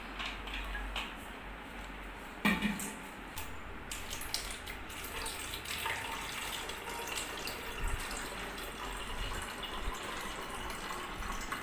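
Liquid pouring from one plastic bottle into another plastic bottle. There is a single loud knock about two and a half seconds in.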